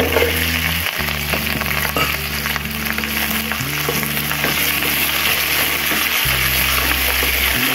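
Split green chillies hitting hot oil and sizzling in a pan with garlic and ginger, stirred with a wooden spatula that scrapes and taps against the pan. Background music with long low notes plays underneath.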